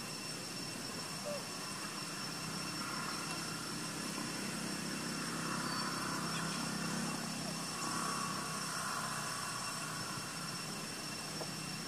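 Steady outdoor background hum, with a distant engine swelling in the middle and fading again, over a few thin steady high-pitched tones.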